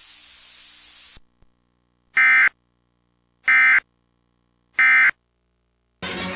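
Three short, loud bursts of NOAA Weather Radio SAME digital data, the end-of-message (EOM) tones that close the Required Weekly Test, sent about a second and a half apart. A faint radio hiss fades out before them, and music begins just at the end.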